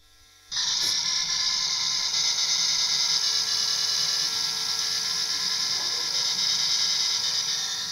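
IBM 1403 line printer playing a programmed tune: its rapidly firing print mechanism makes a loud, harsh buzz with several steady pitched tones inside it. It is heard as a recording over a hall's speakers, starting about half a second in and cutting off near the end.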